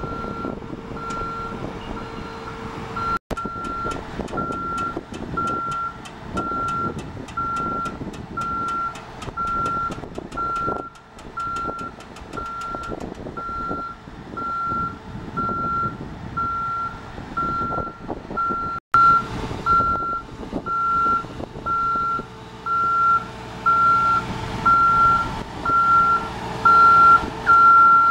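JLG 450AJ boom lift's motion alarm beeping steadily at one pitch, about once a second, while the boom lowers and swings the platform. Under the beeps is the machine's Ford fuel-injected engine and hydraulics running, and the engine gets louder about two-thirds of the way through.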